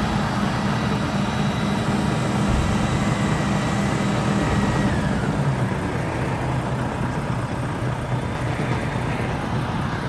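Diesel engine of heavy pea-harvesting machinery running steadily under load. Its note drops a little about halfway through.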